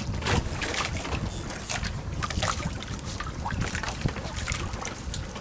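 Wind buffeting the microphone over water lapping against a small fishing boat, with a steady low rumble and scattered small knocks and splashes.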